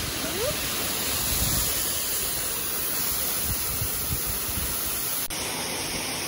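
Steady rushing noise that fills the whole range, with an unsteady low rumble beneath it and an abrupt change in its texture just past five seconds in.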